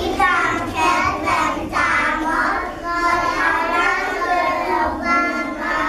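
A group of young kindergarten children singing a song together in unison.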